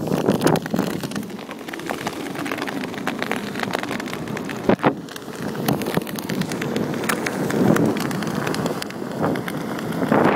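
Kite buggy wheels crunching steadily over thousands of shells on the sand, a dense crackle with one sharper knock about halfway through, mixed with wind buffeting the microphone.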